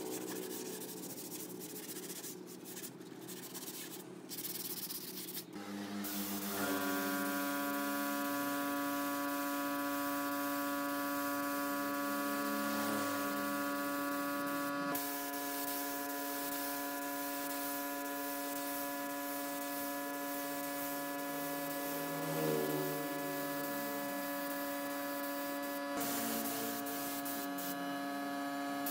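Hands rubbing over a bare sanded wooden tabletop, then, from about six seconds in, a compressed-air spray gun hissing steadily as finish is sprayed, with a steady hum underneath.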